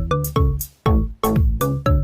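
Upbeat electronic background music with a steady kick-drum beat, about two or three beats a second.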